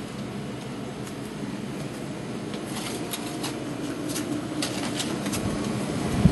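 A dog eating barbecue scraps from its food bowl on a kitchen floor, with a run of sharp clicks and clatters against the bowl about halfway through, over a steady background hum.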